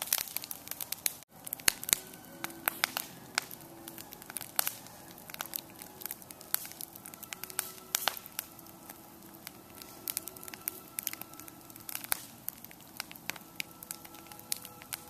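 Wood fire burning in a round metal fire pit, crackling with frequent irregular sharp pops, and faint thin whistling notes in places.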